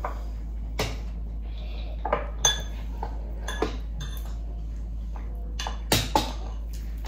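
Metal spoons clinking against dishes: about eight sharp clinks at uneven intervals, some with a short ring.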